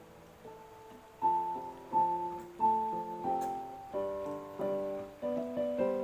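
Background piano music: a soft passage, then louder struck notes and chords about every two-thirds of a second from about a second in.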